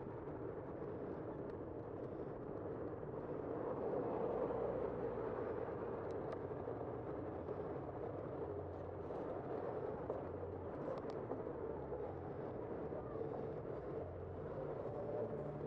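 Steady wind and road noise from a camera on a moving bicycle, with city traffic running along the street and a few faint ticks.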